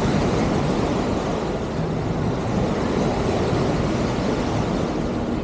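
Steady noise of ocean surf washing onto the beach, mixed with wind rumbling on the microphone.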